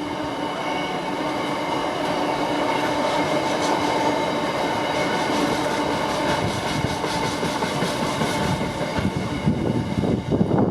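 Freight train wagons rolling along the rails, a steady rumble with a rhythmic clatter of wheels over the rail joints.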